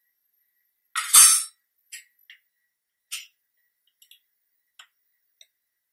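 Clinks and taps of kitchen utensils as chili powder is spooned out: one louder clatter about a second in, then several faint ticks.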